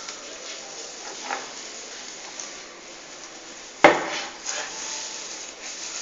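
Dry straw and grass rustling as hands press and work it into a nest, with one sharp knock a little past halfway.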